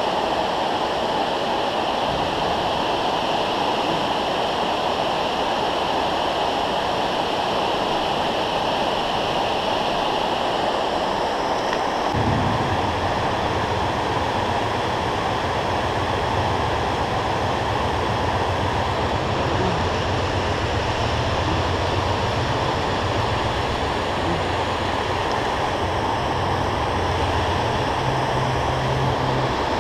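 Steady rushing of water spilling over a low dam, with a low rumble added beneath it from about twelve seconds in.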